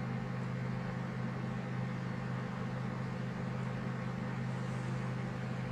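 Steady low mechanical hum over a faint even hiss: background room noise.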